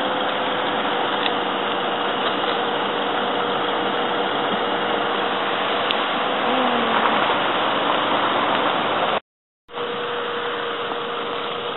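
Car engine idling steadily with a low, even hum; the sound breaks off for about half a second around nine seconds in.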